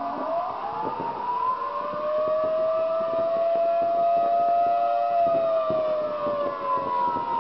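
Homemade siren, a loudspeaker driver in a homemade horn, sounding a wailing civil-defence-style siren tone. The pitch winds up over the first few seconds, holds steady, then falls slowly near the end.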